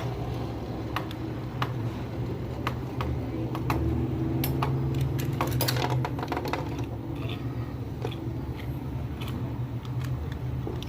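Scattered light clicks and clatters of small hard objects being handled, with a brief flurry about halfway through, over a steady low hum.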